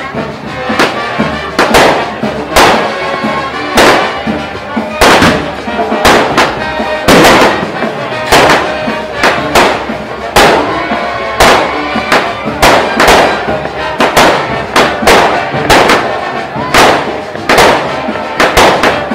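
Aerial fireworks going off in quick succession: about twenty loud bangs, roughly one a second at an uneven pace, each with a short echoing tail. Music plays steadily underneath.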